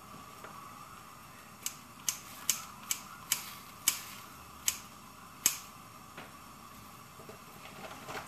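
Kitchen scissors snipping chili peppers into a pot: about eight sharp, separate snips, irregularly spaced, in the middle of the stretch.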